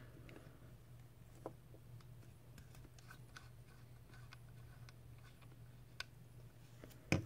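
Faint scattered clicks and light handling noise as a Sigelei Moonshot RTA is twisted off a box mod's threaded 510 connector, over a steady low hum.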